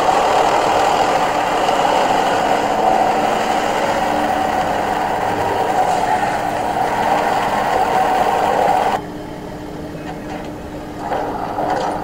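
A pickup truck's engine idling steadily beside a livestock trailer. About nine seconds in the sound drops suddenly and comes back up about two seconds later.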